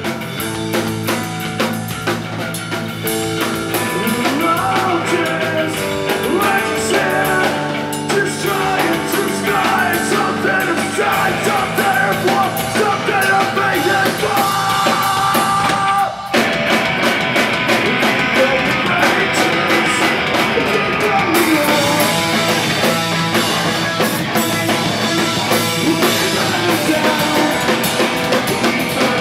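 Live punk rock band playing: distorted electric guitar, electric bass and a drum kit, with a sung lead vocal. About sixteen seconds in the sound cuts out briefly before the band comes back in.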